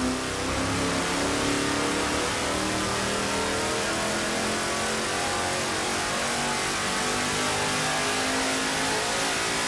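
V8 crate engine on an engine dynamometer making a full-throttle pull on 91-octane pump gas. It revs steadily upward from about 3,000 to over 6,000 rpm.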